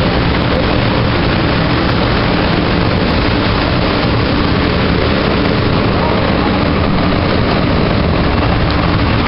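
Steady, loud rumble and hiss from a Calgary C-Train light rail car and its platform surroundings, with a low hum running underneath.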